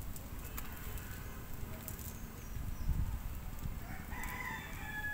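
Outdoor ambience: a low rumble of wind on the microphone with a few faint clicks, and a short, steady, high-pitched animal call about four seconds in.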